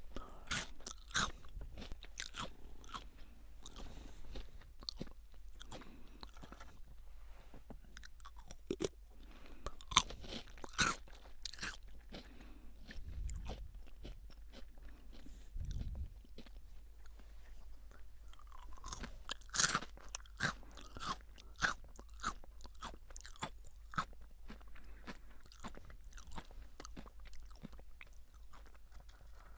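Close-miked crunching and chewing of Jagabee lightly salted potato sticks: irregular sharp crunches as the crisp sticks are bitten and chewed, with a couple of low thuds midway.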